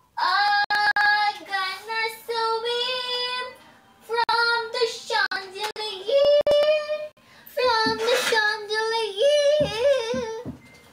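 A young woman singing a melody in three phrases, holding high notes with a wavering vibrato, with short breaths between the phrases.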